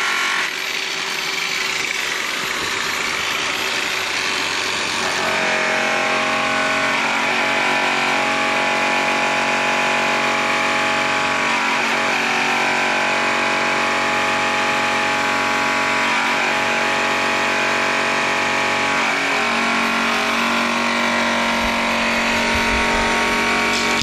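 DeWalt DWP849X variable-speed polisher running steadily with a buffing wheel pressed against a chrome car wheel, cutting the metal with rouge. About five seconds in the rushing sound settles into a steady whine.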